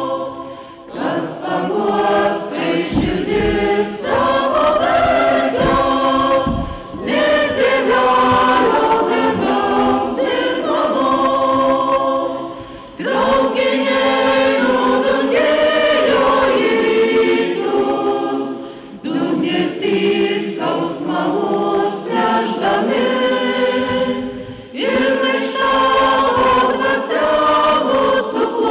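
Mixed choir of men's and women's voices singing together, in phrases a few seconds long with short pauses for breath between them.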